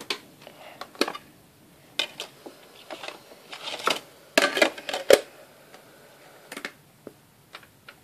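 Handling noise: scattered clicks, knocks and short rustles as things are picked up and moved, busiest about four to five seconds in, then thinning to a few light ticks.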